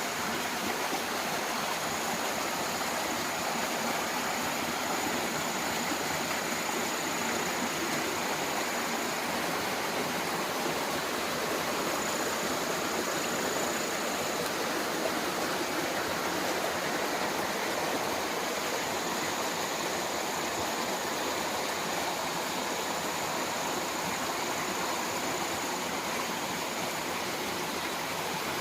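Mountain stream rushing steadily over rocks, with a faint high whine that comes and goes.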